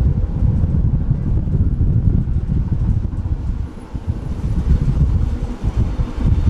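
Tram running along its route, heard from on board: a loud, uneven low rumble with a faint steady hum above it.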